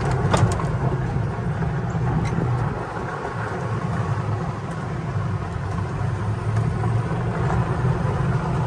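Kandi six-passenger golf cart driving along a rough dirt trail: a steady rumble from the off-road tyres and running gear, with a few sharp clicks about half a second in.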